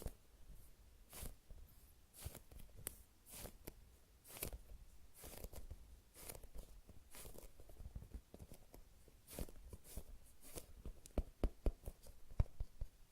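High-rebound foam squishy toy shaped like a baked sweet potato being squeezed and rubbed by hand: faint, irregular soft scratchy rustles, with a quick run of sharper clicks near the end.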